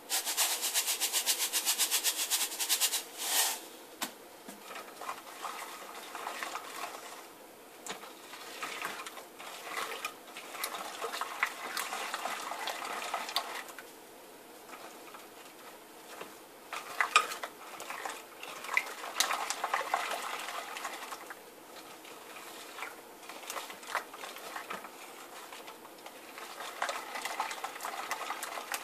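A fast rattle for the first three seconds or so as dry lye is shaken out of a container over the bowl, then a spatula scraping and stirring lye into half-frozen goat milk in a glass bowl, with scattered clicks and knocks against the glass.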